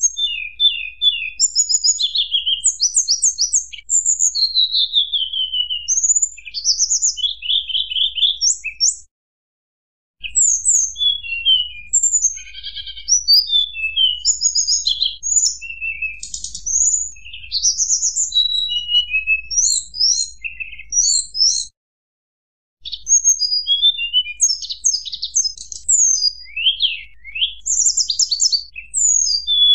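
Tledekan gunung (mountain blue flycatcher) singing a fast, varied run of high flute-like whistles and trills. The song breaks off into two short silences, about a third and two-thirds of the way through.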